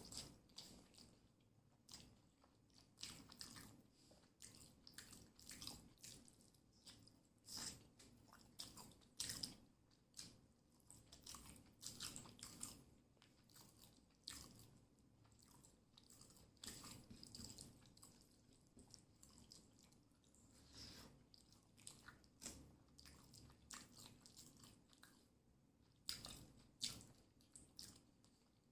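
Close-miked chewing and mouth sounds of a person eating fried fish and rice with curry: a faint, irregular run of short clicks.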